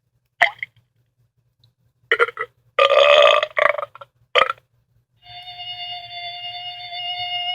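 A string of short novelty sound effects, about five brief blurts with the longest around three seconds in, then a steady held electronic tone from about five seconds in.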